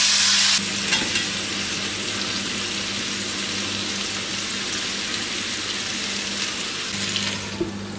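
Pieces of nutria meat sizzling in a cast-iron frying pan as they are laid back in and pushed about with a metal spatula. The sizzle is loudest for the first half second, then settles to a steady frying hiss with a few light clicks of the spatula.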